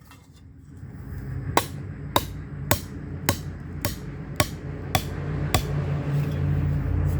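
Hand hammer striking a hot steel shovel blade being forged into a pan: about eight even blows, a little under two a second, starting about a second and a half in and stopping near the end. A low steady rumble runs underneath and grows louder.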